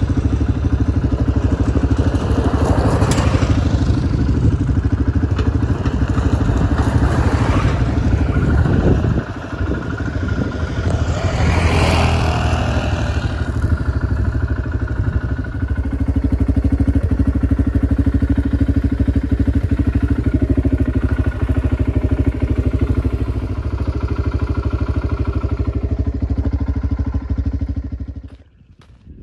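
ATV engine running while driving over a gravel dirt track, with rushing wind noise and rattling over the rough ground. The engine note drops about nine seconds in, then runs steady from about fifteen seconds until the sound cuts off abruptly near the end.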